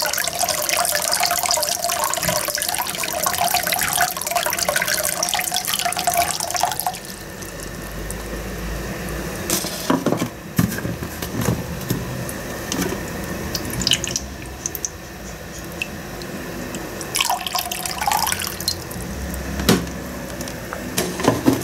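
Filtered water pouring from a water-filter jug into a slow cooker's ceramic insert, a steady splashing stream that stops about seven seconds in. After that come a few light clicks and knocks.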